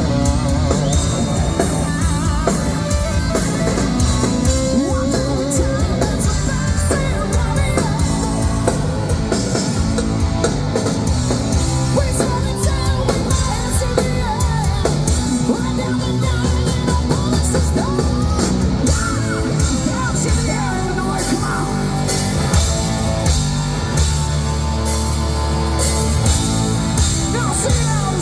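Hard-rock band playing live: electric guitars, bass and drum kit, with a lead singer singing and yelling over them.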